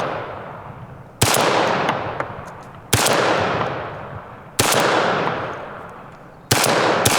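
12-gauge shotgun fired five times in quick succession, about one and a half to two seconds apart, with the last two about half a second apart. Each shot trails off in a long rolling echo.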